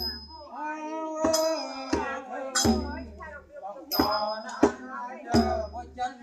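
Ruem Trot folk song: voices singing over a deep drum beat about every two and a half seconds, with small cymbals struck and ringing about twice as often.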